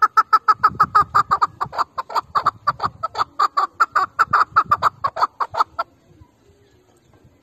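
Chukar partridge calling: a loud, rapid series of harsh chuck notes, about six a second, that stops abruptly near the end.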